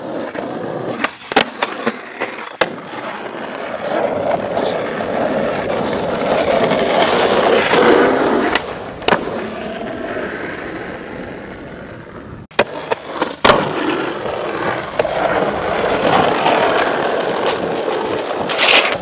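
Skateboard wheels rolling over rough asphalt and concrete, a steady grinding noise that swells and fades. Several sharp clacks of the board hitting the ground break through it, the loudest about three-quarters of the way in.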